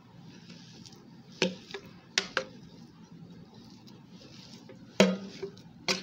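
A plastic spatula scraping and knocking against the stainless steel bowl of an electric meat chopper while scooping out minced meat: a few sharp knocks in two clusters, about a second and a half in and again near the end.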